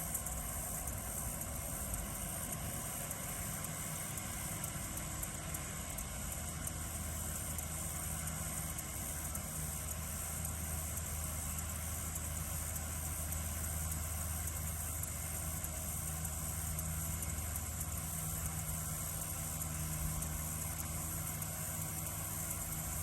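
Tractor engine running steadily, its low hum getting louder from about seven seconds in, under a constant high chirring of crickets.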